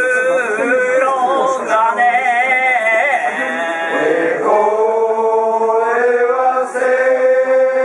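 A man chanting a slow festival song in the kiyari style, holding long, wavering notes that slide between pitches.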